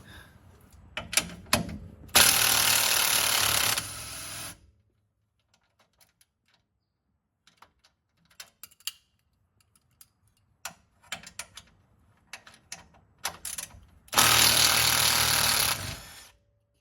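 A power wrench runs in two bursts of about two seconds each, one about two seconds in and one near the end, undoing the lower mounting bolt of a rear strut. Scattered clicks and knocks from the tools being handled come between the bursts.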